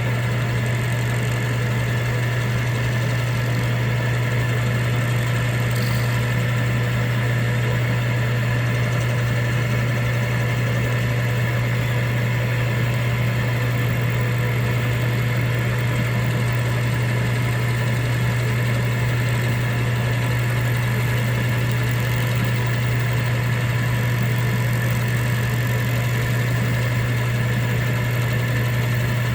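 Drill press running steadily with a low hum while a 5/16-inch end mill in its chuck takes a cut.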